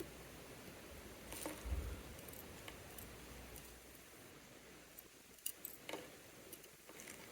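Faint, scattered small clicks and ticks of tools handling the tiny metal parts of a mechanical watch movement, with a soft low bump about two seconds in.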